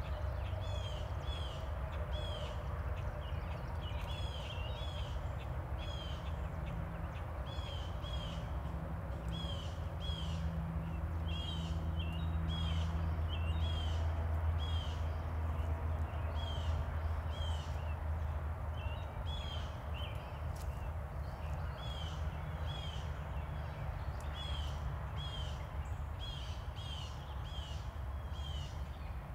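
Birds calling over and over in short, hooked chirps, about one or two a second, over a steady low rumble that swells in the middle.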